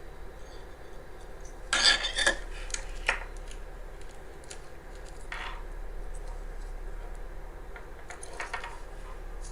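Small hard plastic and metal parts of a barbecue lighter clicking and clattering as they are handled during disassembly, loudest in a short burst of clicks about two seconds in, with a few single clicks later.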